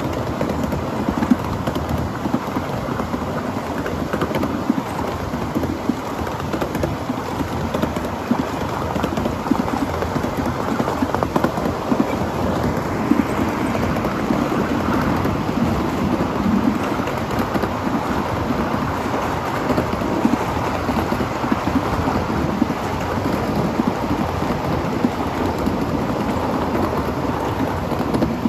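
Ride-on 7.5-inch gauge live steam train running: a steady rumble and clatter of steel wheels and cars rolling over the track, with no pause.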